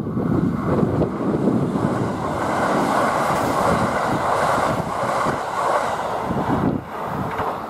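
Kintetsu 80000 series Hinotori limited express passing through a station at speed without stopping: a steady, loud rush of wheels on rail and moving air, which drops away about seven seconds in as the last car goes by.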